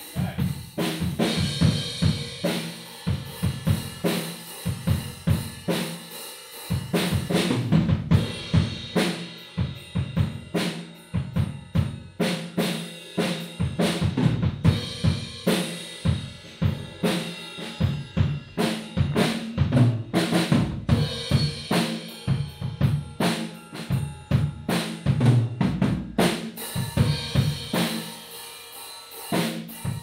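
Acoustic drum kit played with sticks in a steady beat of kick, snare and cymbal hits, heard from the front row outside a plexiglass drum shield with a foam-lined top that holds it to about 70 to 80 dB on a sound level meter.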